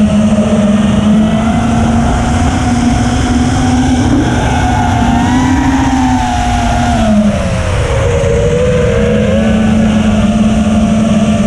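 ImpulseRC Apex 5-inch FPV quadcopter's iFlight Xing 2207 1800KV brushless motors and propellers whining in flight over a steady rushing noise. The pitch holds steady, drops about seven seconds in, and climbs back near the end.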